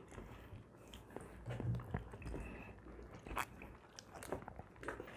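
People eating ripe Rupali mangoes by mouth: faint wet chewing and biting sounds, scattered small clicks and smacks.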